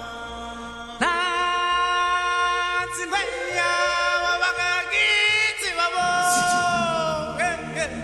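Background music with a singing voice holding long, drawn-out notes that slide at their ends. It gets louder about a second in.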